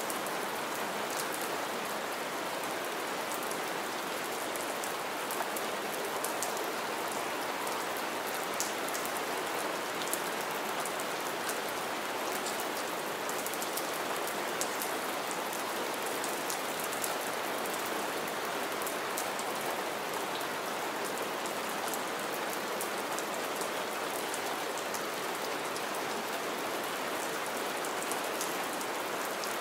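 Steady rain falling onto shallow puddles and wet leaf litter: an even hiss of countless drops, with frequent sharp ticks of single drops splashing close by.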